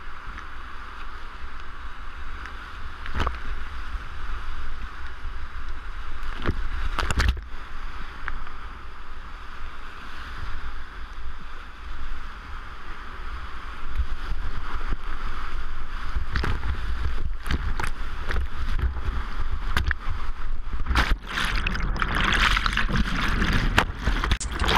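Whitewater rapids rushing around a kayak, heard close up from the boat, with sharp knocks and splashes from paddle strokes. The rush grows louder in the second half, and near the end comes a thick burst of water noise as the boat punches through foaming white water.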